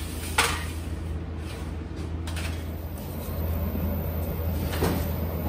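Steady low hum of bakery machinery, a little louder from about three seconds in, where a spiral mixer is kneading dough. There is a sharp metal clack about half a second in as a baking tray is slid into a steel rack, and another clack near the end.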